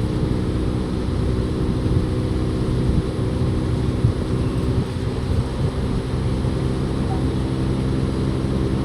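A machine running with a steady low hum that holds one pitch.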